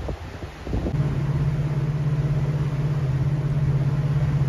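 Meridian 341 motor yacht's engines droning steadily at cruise, heard from inside the enclosed bridge, with a fine, rapid pulse in the drone. The first second is a gusty low rumble of wind on the microphone before the steady engine drone comes in.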